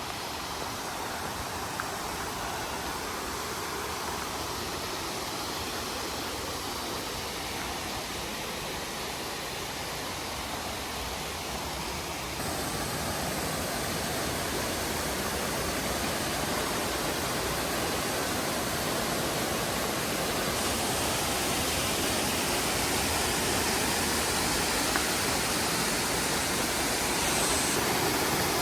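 Steady rush of falling water from a waterfall, the Chichibu Kegon Falls. It grows a little louder in steps about 12 and 21 seconds in.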